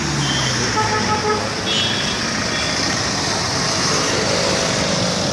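Busy road traffic with motorcycles, auto-rickshaws and cars passing close by. One vehicle's engine falls away as it passes in the first second, and several short horn beeps sound in the first two and a half seconds.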